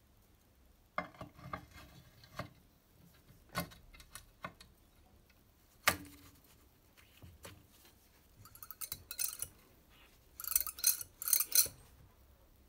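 Steel kickstart shaft, return spring and sector gear of a Vespa 150 VBB engine clinking and knocking against the aluminium engine casing half as they are fitted: scattered clinks, the loudest about six seconds in with a short ring, then quick metallic rattles near the end.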